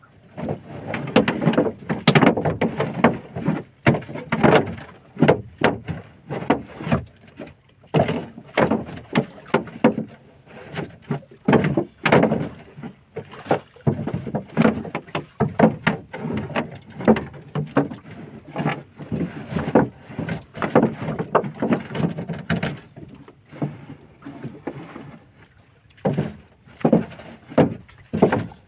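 Irregular knocks, thuds and rattles as folding net crab traps are hauled up and knocked against the side of a small open boat, one after another, often several in quick succession.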